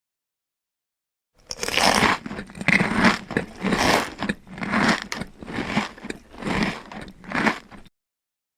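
Crunching sound effect: about seven rhythmic crunches a little under a second apart, starting about a second and a half in.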